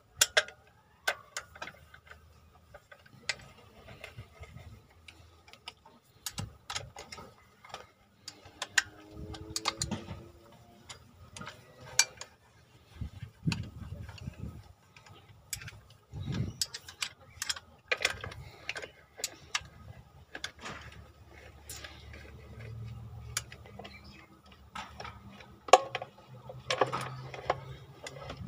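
Wrench working the bolts on a Hino diesel engine: irregular sharp metallic clicks and clinks of the tool against bolt heads and metal.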